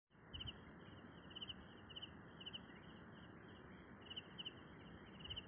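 Faint chorus of insects trilling: one high, continuous pulsing trill and a slightly lower one that comes in short rapid bursts every second or so, over a steady low hiss.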